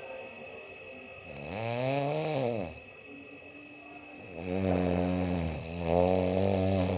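A man snoring loudly: three long, pitched snores whose pitch rises and falls, the last two back to back. He wears an anti-snoring device that does not stop the snoring.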